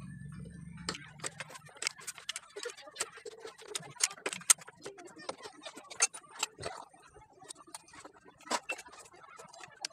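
Irregular sharp metallic clicks and taps, several a second, from small metal engine parts and tools being handled and fitted on an open motorcycle engine crankcase.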